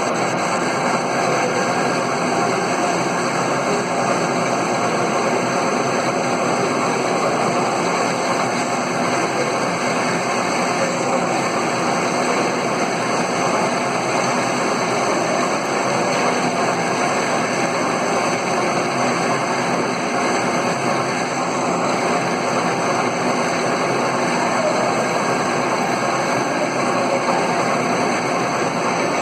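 Metal-turning lathe running, a steady, unbroken mechanical noise.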